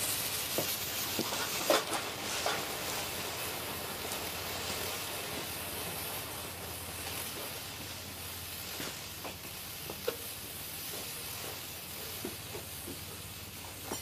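"Dirty Dog" consumer firework burning with a steady hiss, broken by a few sharp crackles, the loudest about two seconds in.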